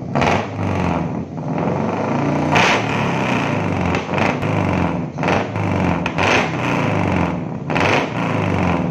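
Daihatsu Gran Max 1.5-litre DOHC VVT-i four-cylinder engine running through a newly fitted racing full-system exhaust with a 4-3-2 header, a deep wavering exhaust note meant to sound like a Harley. Short, brighter bursts come every one to two seconds.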